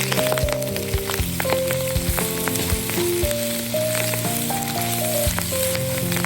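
Pork frying with doubanjiang bean paste in a pan, sizzling steadily, with frequent sharp clicks from stirring. Background music with held, stepping notes plays under it.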